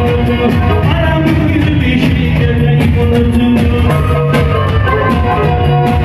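Live Black Sea folk dance music (horon) led by a Karadeniz kemençe, backed by a steady bass and drum beat.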